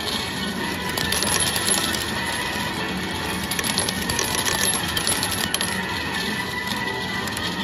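Metal medals pouring out of a Fortune Trinity 2 medal-pusher machine onto its playfield in a dense run of clinking, thickest in the first few seconds. This is the machine paying out a 500-medal field win.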